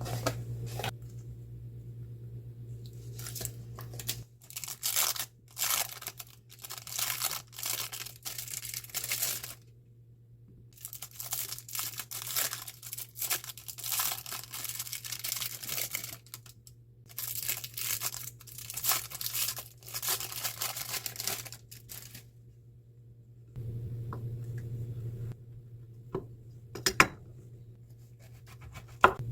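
Repeated tearing and crinkling by hand, in quick clusters of strokes with short pauses between them. A steady low hum sits under it at the start and again later, and there are two sharp clicks near the end.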